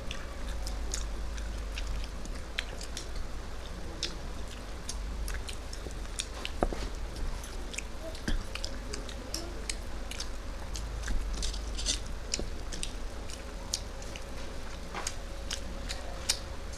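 Close-up eating sounds: chewing with many small wet mouth clicks and smacks throughout, over a low steady hum.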